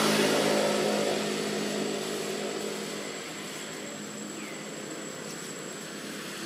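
A motor engine's steady drone, loudest at the start and fading away over the next few seconds as it moves off.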